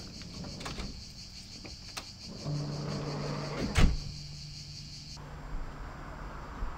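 Latch clicks, then the driver's door of a 1986 Volkswagen T3 Westfalia camper van slammed shut with one sharp, loud bang. A low steady hum starts shortly before the slam, and a steady high buzz runs behind until it cuts off about five seconds in.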